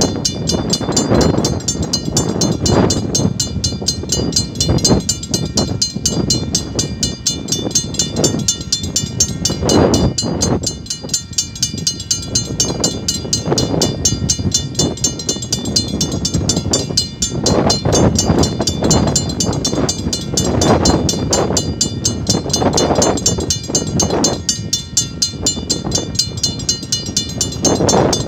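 Railway level-crossing warning bell ringing with a fast, even repeat, over a low rumble that swells and fades every few seconds.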